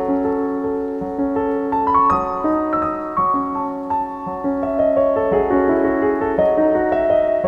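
Piano music: a slow piece with single notes ringing over held chords, the melody climbing a couple of seconds in.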